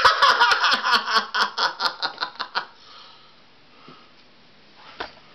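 A man laughing: a quick run of 'ha' pulses, about five a second, that fades away after about two and a half seconds. A single faint click comes near the end.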